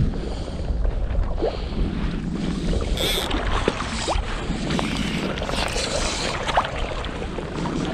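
Wind buffeting the microphone over lapping river water, with a brief hiss about three seconds in.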